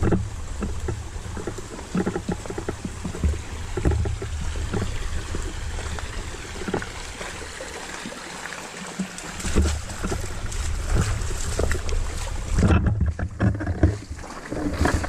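Creek water running and splashing, with irregular low rumbling bumps; the hiss of the water drops away near the end as the bumps grow louder.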